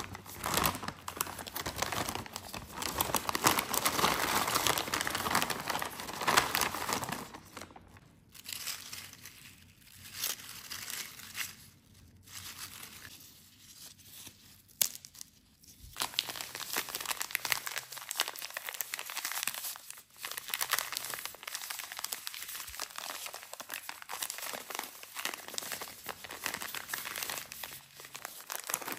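Plastic snack packets crinkling and tearing under thin plastic-gloved hands. The dense crinkling eases to a few sharp crackles about a third of the way in, then picks up again for the rest.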